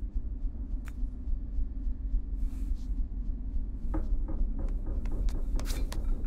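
Sound-designed ambience: a steady low rumble with sparse light clicks and knocks scattered over it, the sharpest about four seconds in and again near the end.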